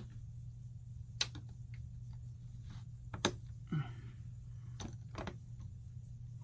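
A few sharp plastic clicks and taps, spaced a second or more apart, as the brick-built roller coaster's parts are handled and pressed into place, over a steady low hum.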